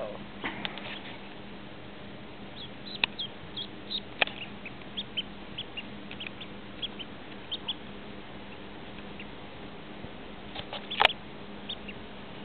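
A duckling peeping: many short, high cheeps in scattered runs, with a few sharp taps among them, the loudest near the end.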